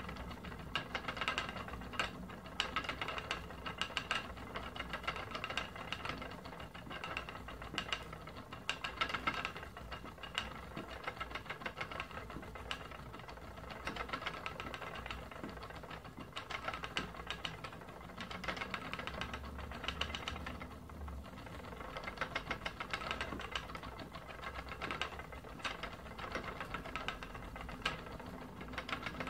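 Wooden spinning wheel being treadled steadily, its wheel, treadle and flyer making a continuous rhythmic knocking and clatter.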